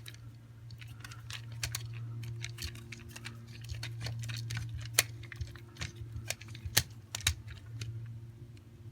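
Irregular small clicks and scrapes of copper wire and a screwdriver working an electrical outlet's terminal screw, as the wire loop is fitted and the screw tightened. A steady low hum runs underneath.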